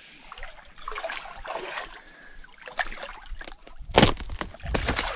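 Water sloshing and splashing around a packraft at a riverbank, with small scattered knocks and clicks and one loud bump about four seconds in.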